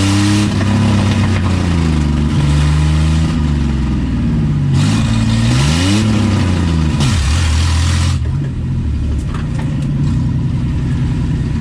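Car engine under hard acceleration on a drag run, its pitch climbing and falling back several times as it revs and shifts, with a rush of wind and road noise. About eight seconds in it eases off to a steadier, lower drone.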